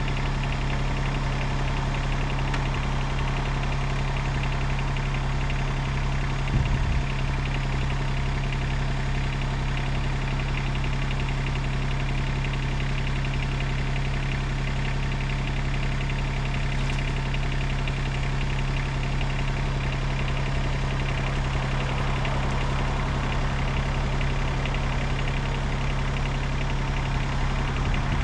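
Tractor engine running steadily at an even speed, with one brief knock about six and a half seconds in.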